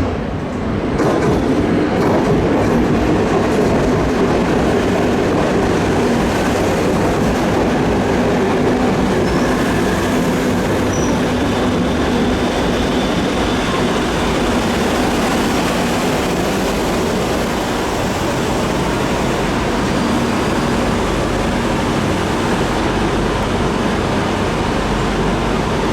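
Electric passenger train running through the station, a loud steady rumble of wheels on rails with a faint hum that swells about a second in.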